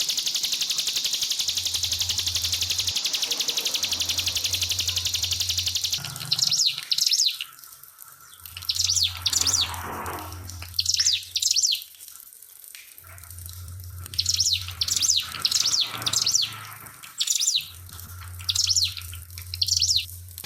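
Ciblek pinus songbird singing its rapid, high 'nembak' song in short repeated bursts, starting about six seconds in. Before that there is a steady high hiss, and a low hum comes and goes underneath.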